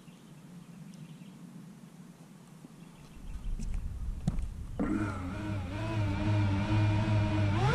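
Brushless motors of a CineLog35 ducted cinewhoop FPV quad. After a few seconds of quiet with faint clicks, they start spinning at idle about five seconds in with a steady multi-toned whine. Right at the end the pitch begins to rise as the throttle comes up.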